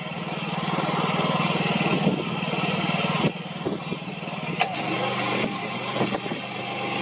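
A steady engine hum under wind buffeting the microphone, with a few sharp knocks and a brief dip about three seconds in.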